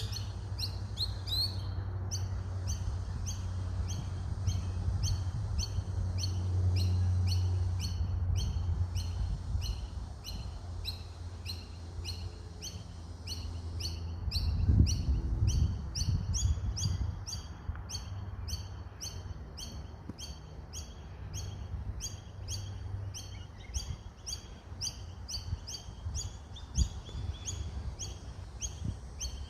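A bird chirping over and over in a steady, even rhythm, about three short high chirps a second.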